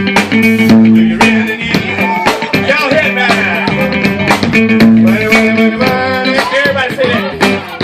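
Loud music with guitar, bass and drums keeping a steady beat, with a voice singing over it.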